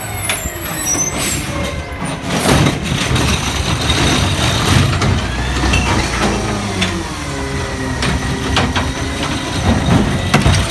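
Garbage truck's engine running, its pitch rising and falling, with repeated clanks and knocks.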